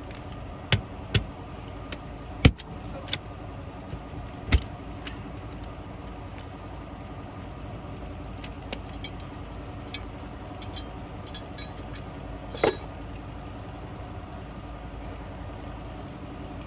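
Small 12-volt tire inflator pump running with a steady hum, filling a re-seated tractor tire. Over it come sharp metal clanks and light clinking of strap hooks and shackles being handled, several early and a jingling cluster with one more clank later.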